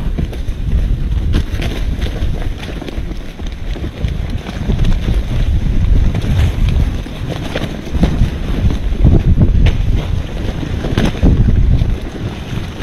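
Wind buffeting the microphone: a loud, gusting low rumble that swells and eases, with a few short knocks or clicks scattered through it.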